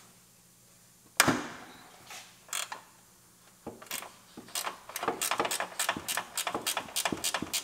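Hand ratchet clicking in a quick, even run, about five clicks a second from about halfway in, while the bolts are backed out of the front bumper shocks. A single sharp metal knock comes about a second in.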